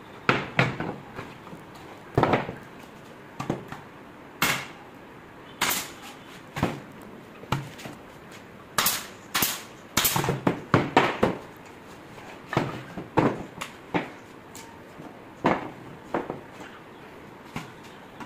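Irregular sharp wooden knocks and clacks, about twenty, as laminated plywood drawer panels are set down, knocked into place and fitted on a wooden workbench, with pneumatic brad nailer shots among them.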